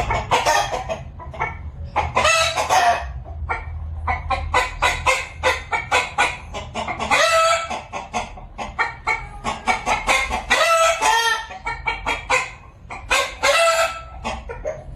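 Domestic chickens: a rooster crowing repeatedly, about five crows, with hens clucking in short calls between.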